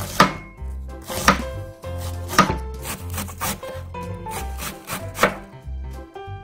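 Chef's knife slicing a wedge of cabbage thinly on a wooden cutting board, a sharp cutting stroke about once a second, over light background music.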